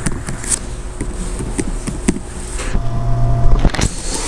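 Computer keyboard keys clicking in scattered strokes as a port number is typed into a text editor. A low steady buzzing hum sounds for about a second near the three-second mark.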